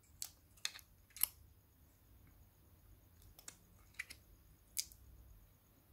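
Scattered light clicks and taps of plastic and glass as a Samsung Galaxy A8 (2018) phone's frame and screen are handled and pressed together by hand, about six sharp clicks in all.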